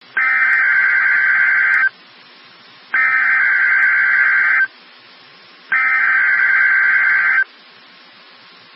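Emergency Alert System SAME header on NOAA Weather Radio: three bursts of digital data screech, each under two seconds, with about a second of radio hiss between them. The bursts are the coded header that sets off weather alert radios at the start of a weekly test.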